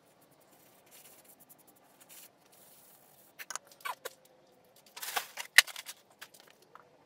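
Hand-handling sounds at a workbench: faint rustling, then a few clicks and scrapes as a stain-soaked rag and a small stained wooden piece are set down on a plywood board. About five seconds in comes louder rustling and a single sharp click, with a few lighter clicks after.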